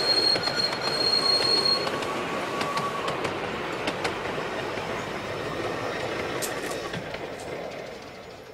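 Miniature steam railway train running on the track, wheels clicking over the rail joints. A high steady squeal stops about two seconds in. The train noise then fades away as the train recedes.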